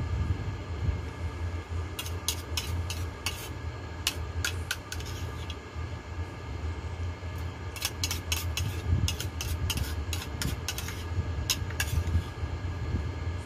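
A spoon clinking and scraping against a bowl in several short runs of quick clicks, over a steady low hum.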